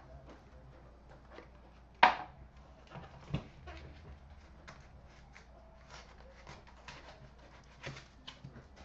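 Hands handling a trading-card box and its cards on a glass counter: a sharp knock about two seconds in, a smaller knock a second or so later, then scattered soft clicks, taps and rustles as the lid comes off and the cards are handled.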